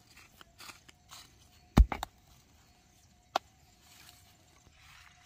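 Three sharp knocks: two close together about two seconds in, the first the loudest, and a single one a second and a half later, among light rustling.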